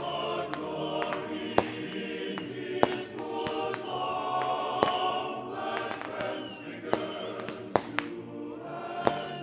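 Choral music playing, with sharp firework bangs cutting through it several times.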